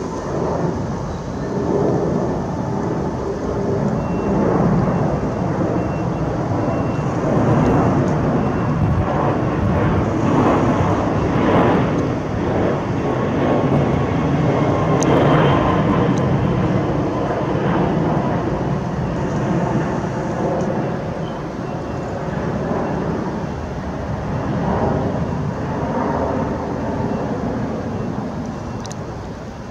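Airbus A330 twin-engine jet airliner passing low overhead on approach with its gear down, its engines a loud steady rumble. The rumble swells over the first few seconds and eases off near the end.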